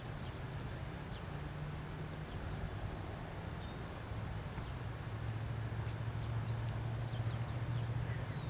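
Quiet open-air ambience: a low steady hum with a few faint, short bird chirps scattered over it.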